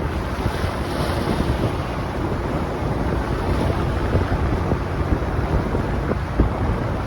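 Passenger ferry under way: a steady low engine rumble mixed with wind buffeting the microphone and the rush of sea water.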